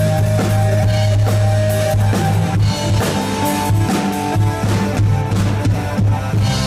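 Rock band playing live: a drum kit with steady hits under guitar and bass.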